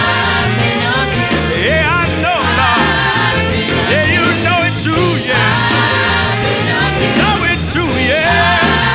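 Live rock-and-soul band with drums, bass, keyboards, guitar and horns playing a driving rock-and-roll number: a steady pulsing bass line and drums underneath, with high wavering melody lines gliding above.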